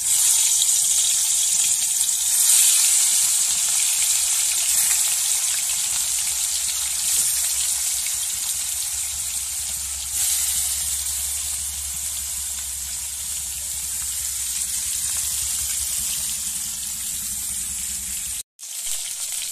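Turmeric-and-salt-rubbed pona (carp) fish steaks sizzling in hot refined white oil in a kadai: a steady frying hiss that swells as the pieces are laid in, at the start and again about ten seconds in. It breaks off for a moment near the end.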